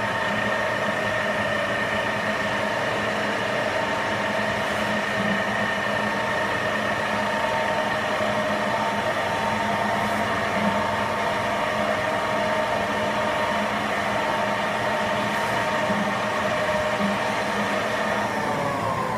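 CNC lathe running at a steady spindle speed with a steady whine, near the end falling in pitch as the spindle slows down.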